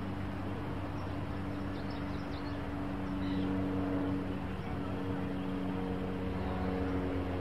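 A steady low engine hum made of several held tones, a little louder from about three seconds in, with a few faint high chirps.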